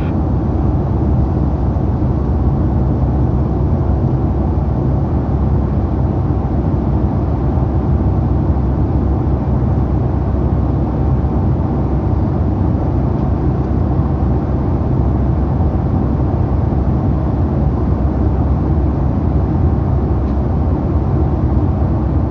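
Steady, unchanging low roar of jet engines and airflow heard inside the passenger cabin of a Boeing 757-200.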